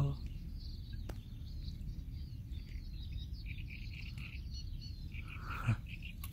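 Small birds chirping faintly in short repeated phrases over a steady low rumble, with one brief soft thump near the end.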